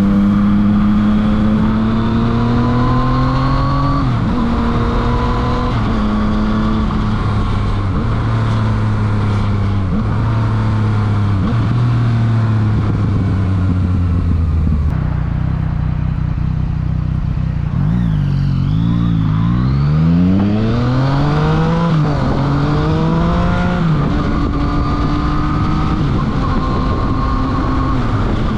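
Yamaha FZ-09's inline three-cylinder engine through a full Akrapovič exhaust, heard from the rider's seat as it accelerates. It climbs in pitch through several quick upshifts, eases back to a low steady note about halfway through, rises and falls sharply a few times, then pulls up through the gears again.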